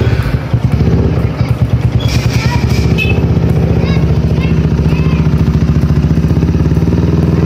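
Yamaha Scorpio 225 cc single-cylinder four-stroke motorcycle engine idling just after an electric start, breathing through a long trumpet-style aftermarket muffler. The exhaust beat is uneven for the first second or so, then settles into a steady, even idle.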